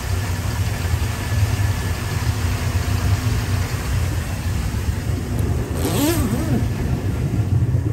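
Twin 4.3-litre carbureted MerCruiser V6 inboard engines running steadily at idle, a low rumble. A brief noise bursts in about six seconds in.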